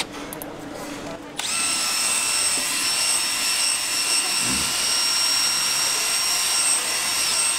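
Cordless drill fitted with a mixing paddle, stirring a steel bowl of bungeoppang batter. It switches on about a second and a half in with a sudden steady high whine and keeps running.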